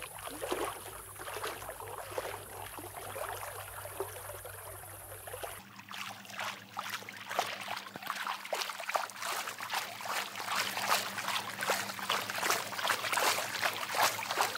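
Legs wading through shallow river water: a steady run of splashing and sloshing over the flowing water, getting louder about six seconds in.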